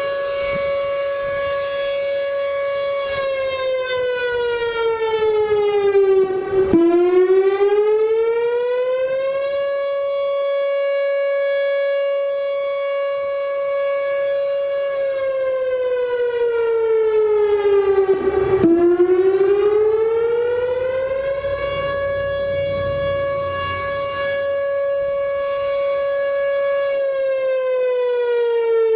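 Whelen Vortex R4 outdoor tornado siren sounding a steady tone that slides down in pitch and then climbs back up, about every twelve seconds, holding level in between.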